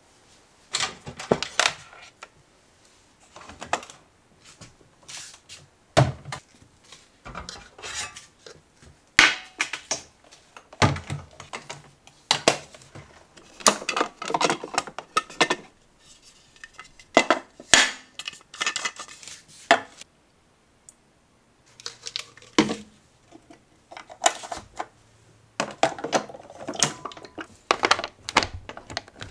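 Hard plastic clicks, knocks and clatter from a facial steamer being handled: its water tank is taken out and fitted back, and near the end its power plug is pushed into the socket. The clicks come in quick clusters, broken by about a second of silence two-thirds of the way through.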